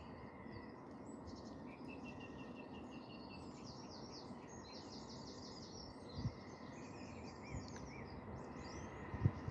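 Small birds singing and chirping, with many overlapping short trills and chirps, over a steady low background rumble, with a couple of brief soft low thumps about six seconds in and near the end.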